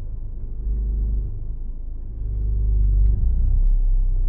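Peugeot 307 being driven, a steady low engine and road rumble that gets louder about two seconds in as the car picks up speed.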